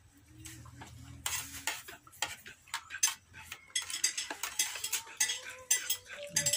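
Light clattering and clinking of small hard objects: many quick clicks in close succession, starting about a second in.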